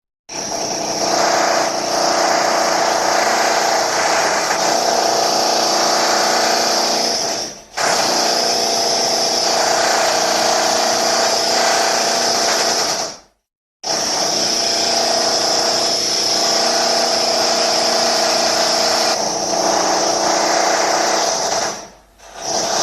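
Power drill motor running at a steady high whine in long runs. It is cut off briefly three times: about seven and a half seconds in, for a moment of silence around thirteen seconds, and again near the end.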